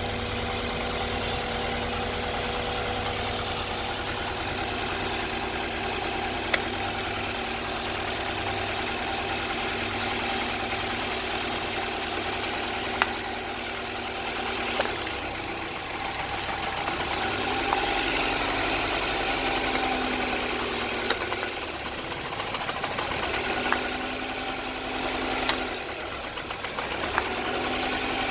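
1998 GSR's engine idling, its note shifting about halfway through; the owner suspects a misfire on cylinder 3 (code 73).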